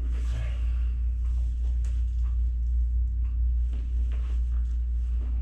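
A steady low rumble in the room, with faint rustling and a few soft clicks as a patient settles and is handled on a chiropractic treatment table.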